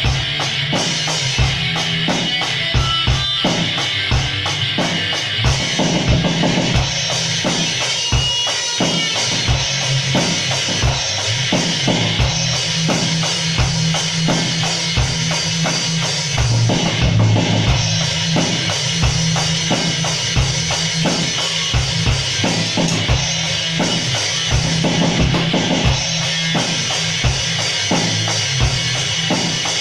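A band playing with a drum kit driving a steady beat of bass drum and snare, over a sustained low bass or guitar line. The sound is loud and harsh.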